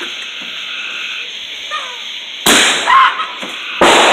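Two loud firework bangs just over a second apart, each dying away with a short echo.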